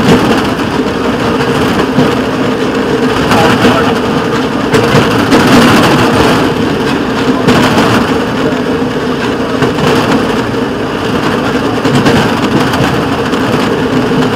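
A railroad motorcar (speeder) running along the track, its small engine droning at one steady pitch under a constant rushing noise.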